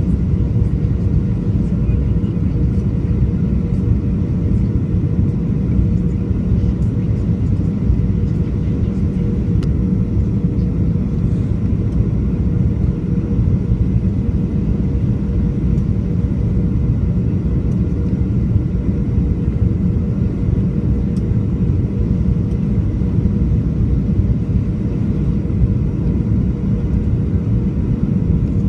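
Cabin noise of a Boeing 737-500 heard from a seat over the wing during its descent on approach to land: a steady rumble of its CFM56-3 turbofan engines and the airflow, with a steady hum riding on it.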